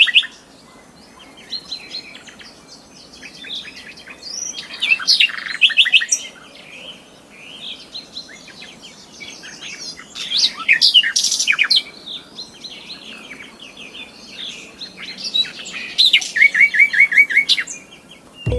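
Small songbirds chirping and singing in bursts of overlapping calls and short trills, with a run of about six quick, even notes near the end.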